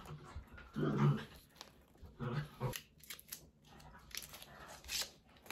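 A small cardboard box being opened and a liquid eyeliner pen slid out: a few light clicks and crinkles of card. Two short low voice-like sounds come about a second apart just before.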